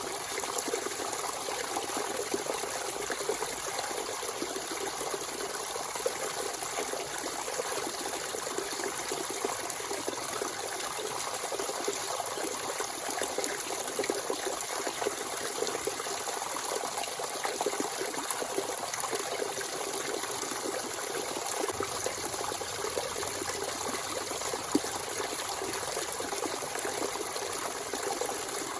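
Natural spring water running freely, a steady trickling and splashing flow.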